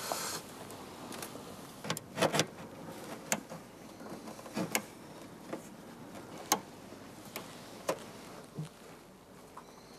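Sharp irregular clicks and taps of a new emblem's clips being pressed against the front panel of a Fiat 500, about ten in all, the loudest a pair about two seconds in. The clips are not snapping home: the new part's claws do not fit and it sits slightly proud.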